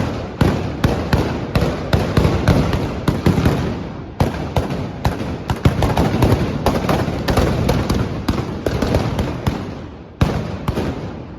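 A volley of trabucs, Catalan blunderbusses fired with blank black-powder charges: loud, irregular shots, several a second and often overlapping, with a rumbling echo between them. The firing thins out near the end, with two last shots about ten seconds in.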